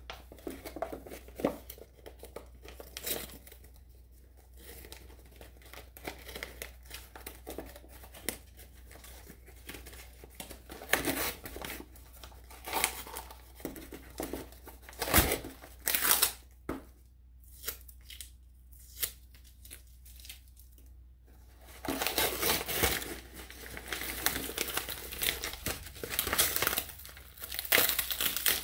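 Paper wrapping around a potted plant being crinkled and torn open by hand, in scattered rustles and sharp tears, with a denser spell of crinkling over the last several seconds.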